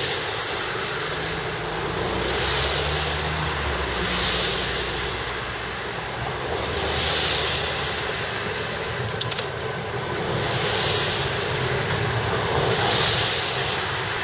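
A pair of coupled Tatra trams running past on snow-covered track, with a steady rolling rumble and a low motor hum that is strongest in the first half. Rolling noise swells every second or two, and there are a few clicks about nine seconds in.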